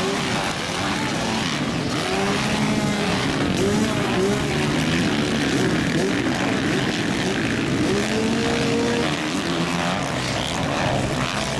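Engines of several motocross dirt bikes revving, their pitch repeatedly rising and falling as they accelerate and back off, several engines at once.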